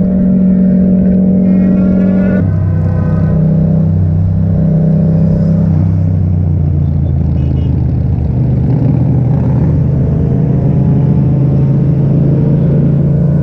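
Yamaha MT-07's parallel-twin engine running through an Akrapovic aftermarket exhaust, heard from on the moving bike. It holds a steady note, drops in pitch about two seconds in, and settles to a lower steady note for the rest.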